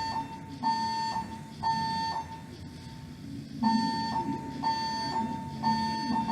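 Building fire alarm's evacuation tone in the temporal-three pattern: a steady high beep sounding three times about once a second, a pause, then three more beeps.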